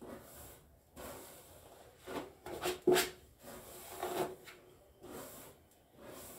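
Comb drawn through long curly hair as it is parted, in a series of short, irregular strokes, the loudest about three seconds in.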